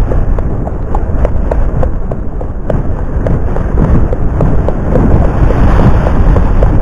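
Wind rumbling and buffeting on an action camera's microphone, with light clicks in a steady rhythm of about three a second from a ridden horse's hoofbeats.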